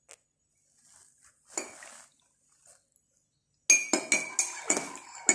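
Metal spoon stirring coffee in a ceramic mug, clinking quickly against the sides at about four strikes a second, starting about three and a half seconds in after a mostly quiet stretch.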